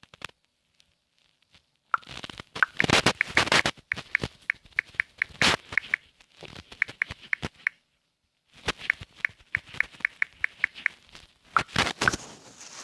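A phone's touchscreen keyboard being typed on: quick runs of key-click ticks and finger taps, in two bursts with a short pause between.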